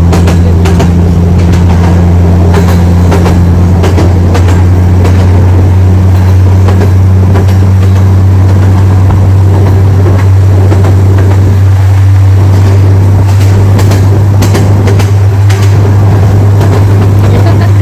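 Loud steady low drone of a running vehicle's engine or motor, with scattered clicks and knocks.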